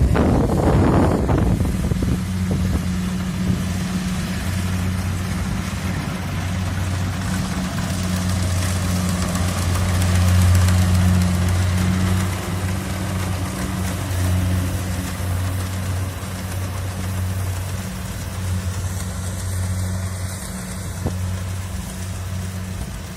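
Kubota DC70 rice combine harvester's diesel engine running steadily under working load, a low even drone with a hiss of machinery over it. There is a louder rush in the first second or two.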